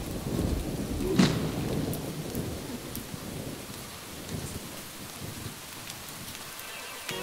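Rain falling with thunder. A sharp thunderclap comes about a second in, then the rumble and rain slowly die down.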